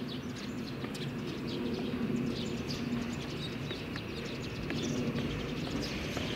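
Birds chirping in many quick, short calls over a steady low hum.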